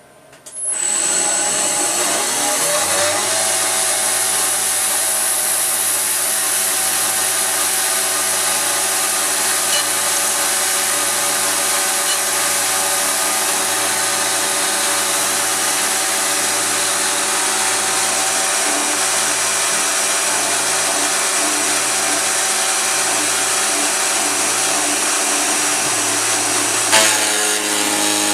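CNC mill spindle spinning up to about 7000 RPM, then a 2-flute 1-inch insert cutter roughing 6061 aluminum plate: a loud, steady cutting noise over the spindle's whine. A brief spike near the end, and the tone changes.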